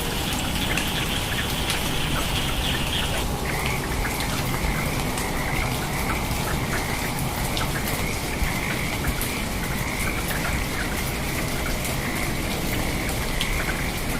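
Steady rain with scattered drops pattering, under a continuous high-pitched trilling chorus; about three seconds in the higher trill stops and a slightly lower one takes over.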